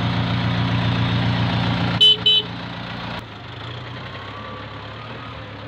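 Tractor engine running steadily, with two short horn toots about two seconds in. A second later the engine sound drops suddenly to a quieter, steady run.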